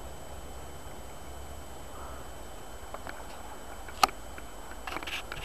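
Steady faint background hiss with one sharp click about four seconds in, then a short harsh crow call near the end.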